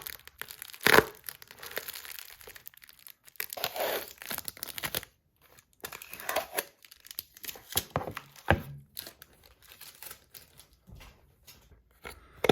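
A shipping package being opened by hand: tape and paper tearing and packing material crinkling in irregular bursts, with a sharp knock about a second in and another near the end.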